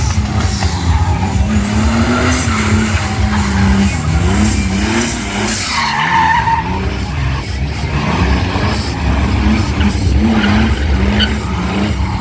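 A car doing a burnout: the engine is held at high revs while the spinning tyres screech, over a heavy low rumble.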